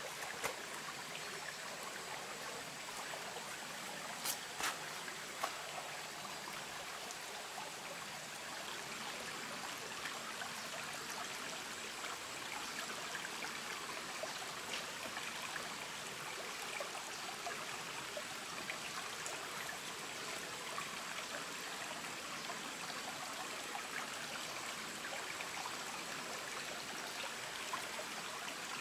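Shallow forest stream running steadily over rocks, with a few sharp knocks about four to five seconds in as flat stones are set on a clay-and-stone stove.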